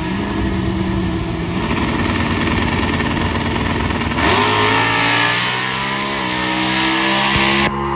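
Drag-racing engines of a Cobra and a nitrous truck running at the starting line. About four seconds in the revs climb sharply as they launch down the track, and the pitch steps up again a couple of seconds later.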